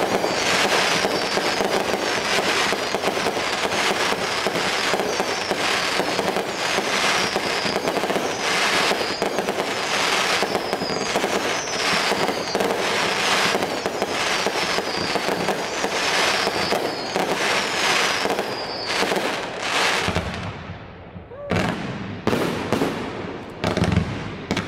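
Fireworks display: aerial shells bursting in a dense, continuous crackle of rapid pops for about twenty seconds, with a faint high whistle running through it. Near the end the barrage briefly dies down, then a few separate bangs follow.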